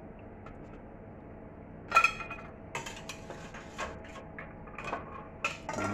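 Metal kitchen tongs clinking against a stainless steel pot and glass jars while lifting jar lids out of hot water: one sharp ringing clink about two seconds in, then a run of lighter clicks and taps.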